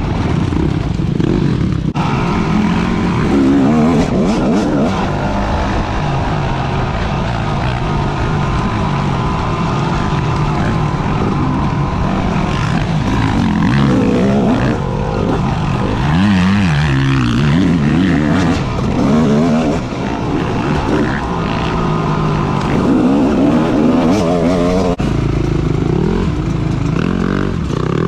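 Motorcycle engine running under way, its pitch rising and falling again and again as it revs up and eases off.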